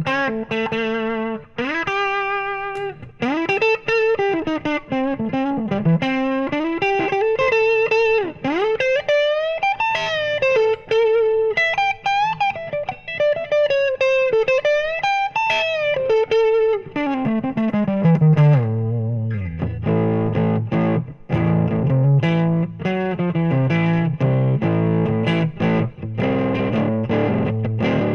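Oscar Schmidt OE20 Les Paul-style electric guitar with humbucking pickups, played through a VOX VT40X modelling amp on a tweed-type amp sound. It plays a single-note blues lead with string bends, slides down the neck about seventeen seconds in, and finishes on low rhythm chords.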